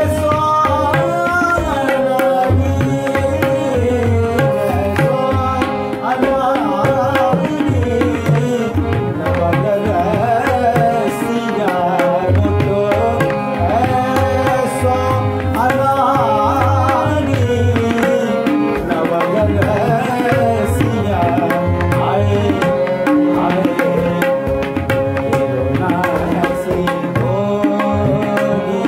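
Tabla and harmonium playing a classical Kumauni Holi in raga Jangla Kafi: a steady run of tabla strokes under a held, wavering harmonium melody.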